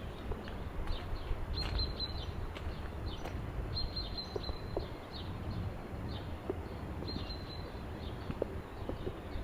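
A small bird calling three times in short clusters of high chirps, over a steady low outdoor rumble with scattered faint taps.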